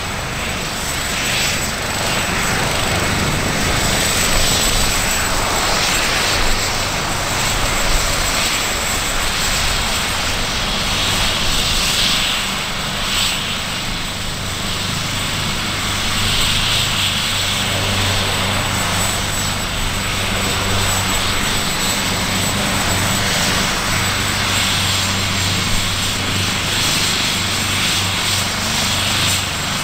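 AgustaWestland AW139 twin-turbine helicopter running at a steady level: a low rotor hum under a thin, high turbine whine.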